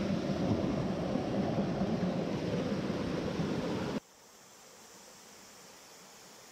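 Mountain stream rushing over rocks close by, a steady loud rush of water. It cuts off suddenly about four seconds in, leaving a much fainter steady hush.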